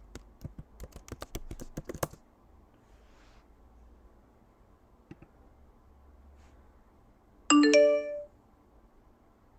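Keyboard typing, a quick run of key clicks for about two seconds as a password is entered, then a single click about five seconds in. Near the end comes the loudest sound, a short two-note macOS alert chime, ringing briefly, as a system notification appears.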